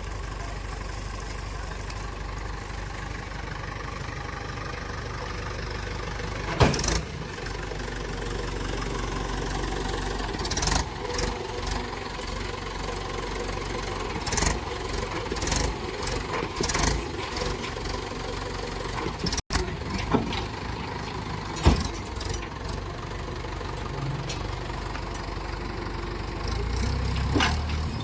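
Heavy diesel machine's engine running steadily, with several sharp knocks or clanks scattered through, the loudest about seven seconds in and another near the end.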